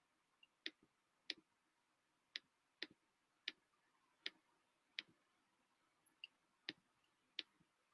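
Computer mouse clicking: about ten short, sharp single clicks at uneven intervals.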